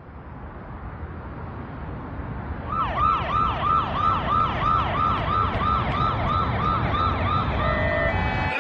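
Emergency vehicle siren sounding in a fast repeating yelp, about three to four sweeps a second, coming in about three seconds in over a low rumble that grows louder as the vehicle approaches. Near the end the sweep gives way to steady tones.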